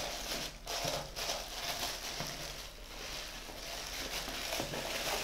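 Plastic wrapping crinkling and rustling in irregular crackles as hands pull it off a small cardboard box.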